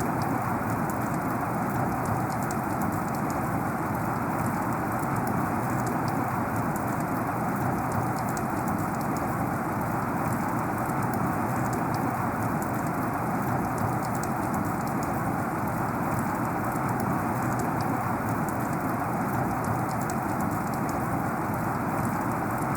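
Heavy rain falling steadily, an even rushing hiss with faint scattered drop ticks.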